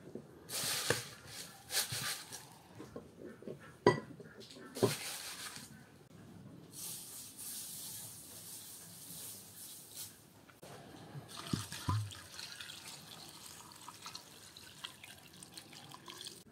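Dry onion skins rustling as onions are peeled by hand, with a few sharp knocks, then water poured from a clay jug into an aluminium pot full of onion skins, a steady splashing pour through the second half.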